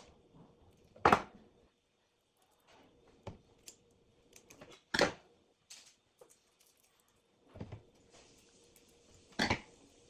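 Handling noise of wiring work on a hard tabletop: needle-nose pliers and thin wires clicking and knocking. There are three loud sharp knocks, about a second in, about five seconds in and near the end, with quieter ticks between. One of them is the pliers being set down on the table.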